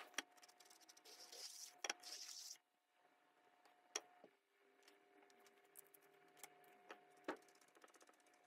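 Faint handling sounds at a work table: scattered light clicks and a short scratchy hiss about a second and a half in, over a faint steady hum.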